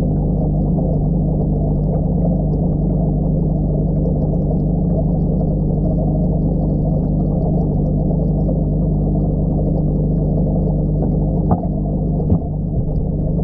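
Steady low hum and bubbling wash of an aquarium air pump driving a sponge filter, heard from underwater in the tank. Two short knocks come near the end.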